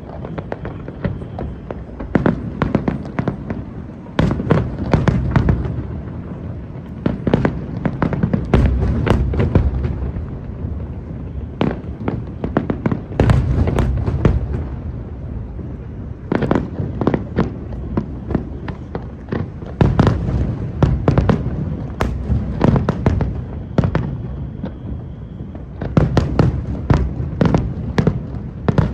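Aerial fireworks display: rapid volleys of sharp shell bursts and bangs in clusters, separated by brief lulls every few seconds, over a continuous low booming rumble.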